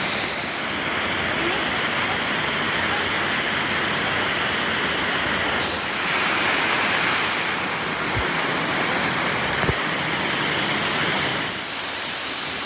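Waterfall rushing steadily with a strong flow of water.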